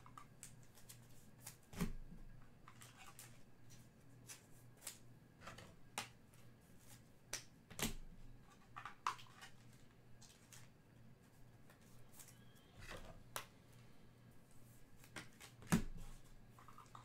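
Trading cards being handled, faintly: scattered small clicks, slides and rustles, with two louder thumps, one about two seconds in and one near the end.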